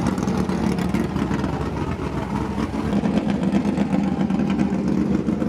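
Late model race car engines running steadily at low revs, a deep continuous rumble with no clear revving.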